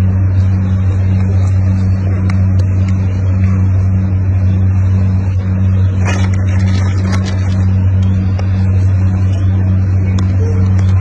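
A steady, loud low hum with a slight regular pulsing, and a few faint clicks about six to seven seconds in.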